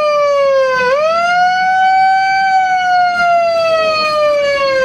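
A megaphone's built-in siren wailing as an alarm. Its single loud tone slides slowly down in pitch, jumps quickly back up about a second in, then slides slowly down again.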